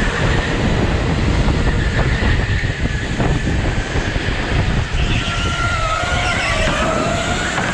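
A go-kart driving on an indoor track: a motor whine that rises and falls in pitch with speed over a constant low rumble.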